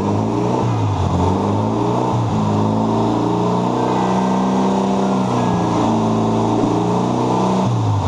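Volkswagen Fusca (Beetle) 1600 air-cooled flat-four engine running on an engine stand, revved up over the first couple of seconds and held at raised speed, then dropping back toward idle near the end.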